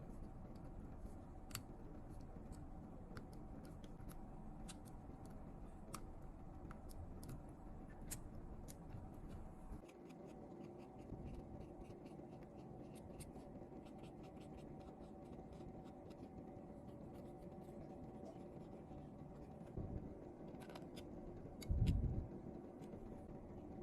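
Faint scattered clicks and light taps of small repair tools working on a phone, over a low steady hum, with one dull thump near the end.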